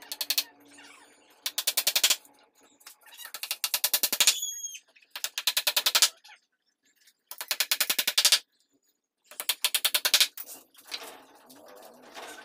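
Hammer striking a particleboard speaker-cabinet panel in several quick runs of light, rapid blows, each run about a second or less, with short pauses between. A brief high chirp sounds about four seconds in.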